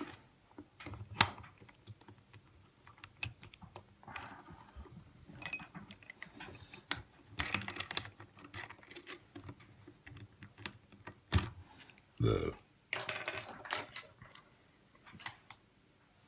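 Scattered metal clicks, clinks and scrapes from a Kasp 14040 padlock and its key being handled, with sharper clicks about a second in and near the end.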